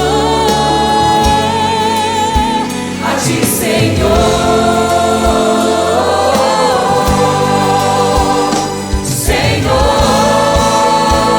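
Gospel worship song with a choir singing long held notes with vibrato over a band, cymbal swells rising twice.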